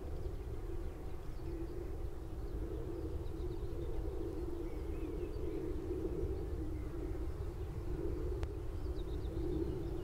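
Skylarks singing faintly with high, wavering trills above a steady hum and the low rumble of distant traffic.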